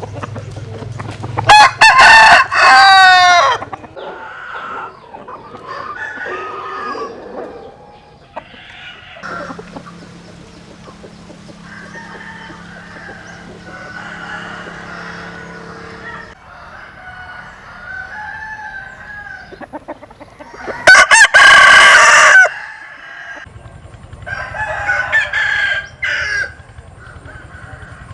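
Vietnamese game-fowl roosters (gà nòi) crowing loudly twice, about two seconds in and again about three-quarters of the way through, with quieter clucks and calls in between.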